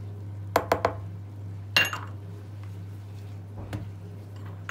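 Kitchen utensils being handled over a mixing bowl: a few quick clicks, then a ringing metallic clink about two seconds in, over a steady low hum.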